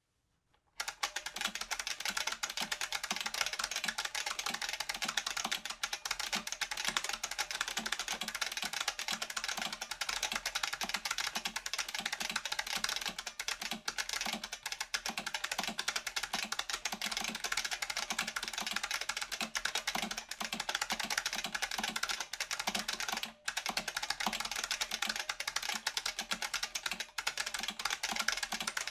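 Fast, continuous typing on an IBM Model F XT keyboard, its stock buckling-spring switches clicking densely. There is a brief pause in the keystrokes toward the end.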